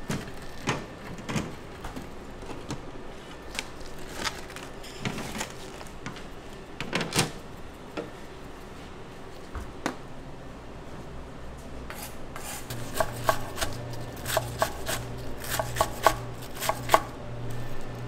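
A kitchen knife chopping on a cutting board in irregular strikes, which come faster and louder in the last third. A low steady hum starts about two-thirds of the way in.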